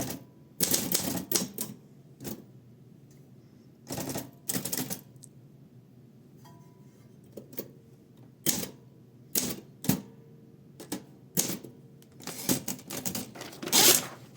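Olympia SM8 manual typewriter being typed on: irregular keystrokes clacking singly and in short runs, with pauses between them and a heavier run of strikes near the end.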